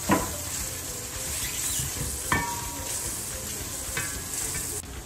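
Sliced onions sizzling in hot oil in an aluminium cooking pot as they fry toward light golden brown, stirred with a silicone spatula that knocks against the pot three times.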